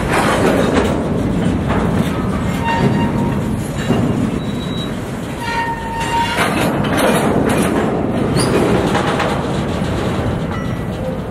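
New York & Atlantic freight train rolling past close by, wheels clattering and cars clanking over the rail joints. Two brief high-pitched wheel squeals come about three and six seconds in.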